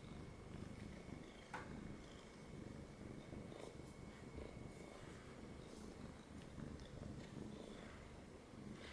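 Domestic cat purring close to the microphone, a low pulsing rumble that goes on steadily, with a light click about one and a half seconds in.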